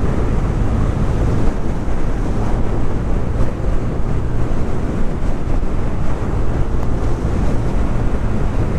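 Wind rushing and buffeting over the microphone while riding a Honda SH125 scooter, with its 125 cc engine running steadily underneath.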